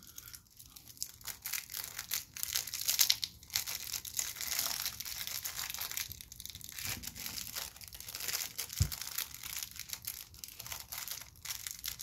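Small clear plastic packaging bag crinkling and tearing as it is handled and pulled open by hand, an irregular crackle throughout, with one soft thump about nine seconds in.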